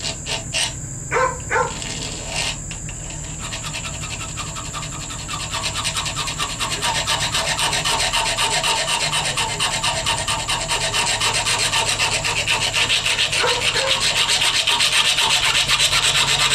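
Round rat-tail file drawn rapidly back and forth across a soft copper fitting clamped in a vise, cutting a groove. A few separate knocks come first, then a steady run of rasping strokes that grows louder toward the end.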